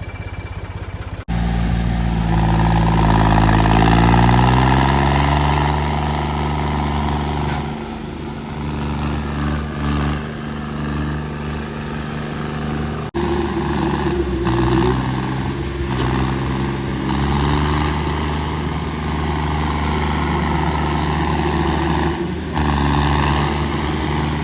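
Diesel tractor engine revving up over about two seconds, held high, then easing off and rising and falling again.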